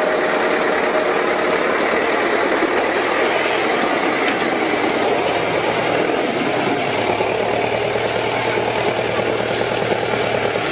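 Engine running steadily, with a low hum joining about seven seconds in.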